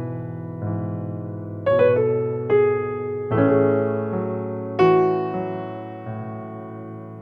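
Soft background piano music: single struck notes and chords, each ringing out and fading before the next.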